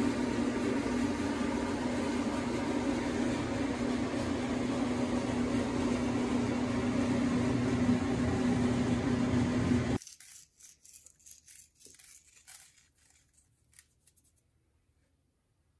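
A steady machine-like whir with a low hum, such as a fan or kitchen appliance, cuts off suddenly about ten seconds in. After it come faint, scattered light ticks as salt is sprinkled over raw chicken pieces on a sheet pan.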